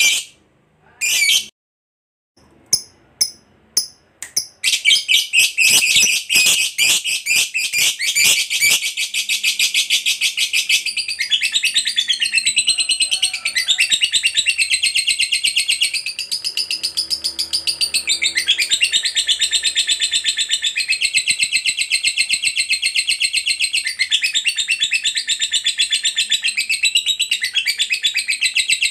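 A lovebird gives a couple of short shrill calls and a few clicks, then about five seconds in breaks into one long, unbroken, very rapid chattering trill, the 'ngekek panjang' prized in fighter lovebirds.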